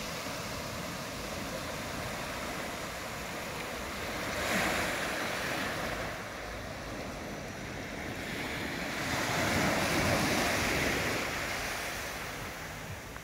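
Small waves washing up onto a sandy, pebbly shore, a steady wash that swells twice: briefly about four seconds in, and longer from about nine to eleven seconds.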